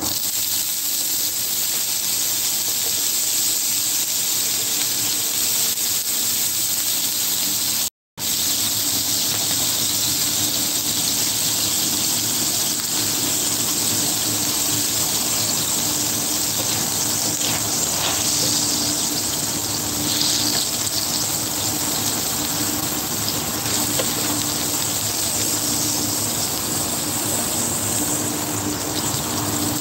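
Hot dog pieces sizzling steadily in hot grease on an electric griddle as they are turned with a spatula. The sound cuts out completely for a moment about eight seconds in.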